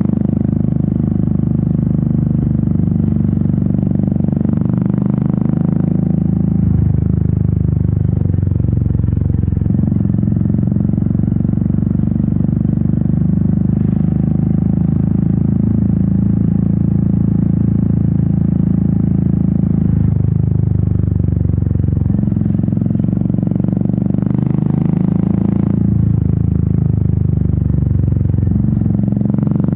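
Royal Enfield Meteor 350's single-cylinder engine and exhaust running steadily while riding, its pitch shifting a few times as the rider works the throttle.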